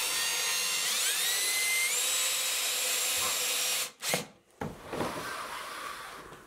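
Cordless drill driving a screw into a window-shade mounting bracket: the motor whine rises in pitch about a second in as it speeds up, holds steady, then cuts off after about four seconds. A click and a fainter, fading noise follow.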